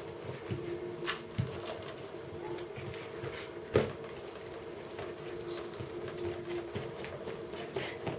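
Hands pressing and stretching soft yeast dough on an oiled silicone mat: faint, soft pats and squishes, with one louder thump near the middle, over a steady background hum.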